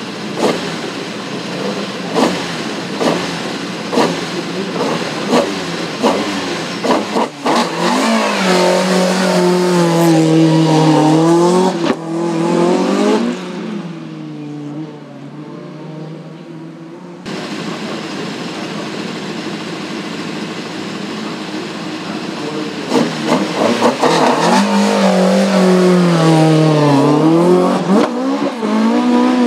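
Opel Kadett C hillclimb race car's engine idling with short throttle blips about once a second. It is then held at high revs that waver up and down for several seconds before dropping back to idle, and the same happens again near the end.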